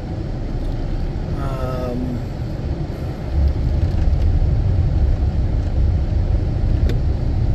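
Steady low rumble of a vehicle driving on a highway, heard from inside the cab: engine and tyre road noise, growing louder about three seconds in. A brief voice sound about a second and a half in.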